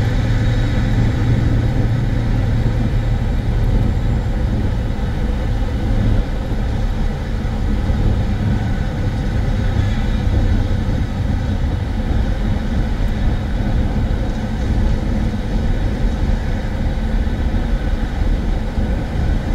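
Steady road noise of a car driving at motorway speed, heard from inside the cabin: a constant deep rumble of tyres and engine with a steady hum.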